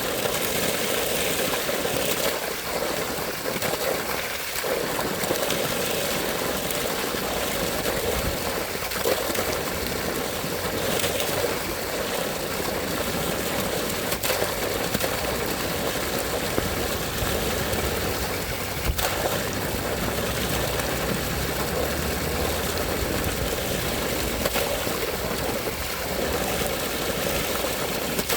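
Water flowing steadily in a stream, a continuous rushing and gurgling.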